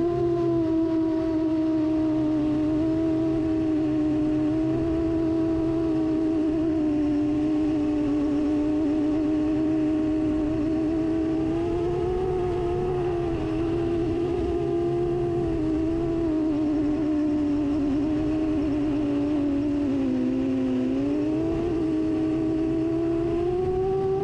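FPV drone's electric motors whining with a single steady tone that wavers up and down with the throttle, dipping in pitch about twenty seconds in and climbing again near the end.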